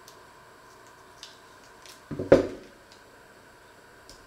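Hands handling and unwrapping a foil-wrapped block on a wooden worktop: a few faint clicks, then a short cluster of knocks and rustling about two seconds in.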